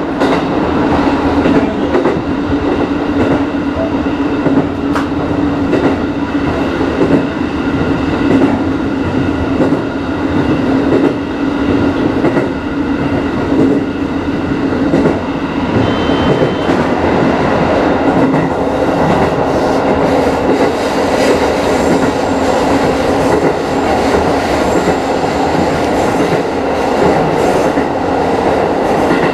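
Aonami Line electric commuter train running at speed, heard from inside the front car: a steady running noise with the wheels clicking over the track.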